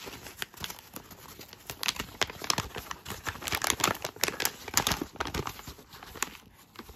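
Kraft paper bag of dried chasteberries being pulled out of a cardboard box and unrolled open: stiff paper crinkling and rustling in a quick run of crackles, busiest in the middle.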